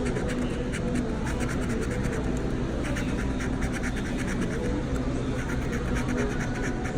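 Scratch-off lottery ticket being scratched, its coating rubbed off in quick, repeated strokes, over a steady low hum.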